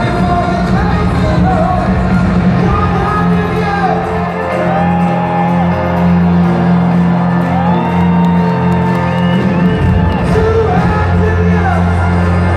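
Live band music amplified through a stadium PA, with held bass notes under a singing voice, and the crowd whooping and shouting along.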